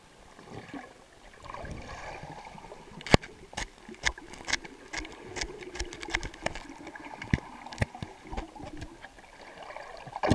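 Muffled underwater sound with a run of about a dozen sharp clicks and knocks over several seconds, one standing out near the start of the run, and a heavy thud at the very end.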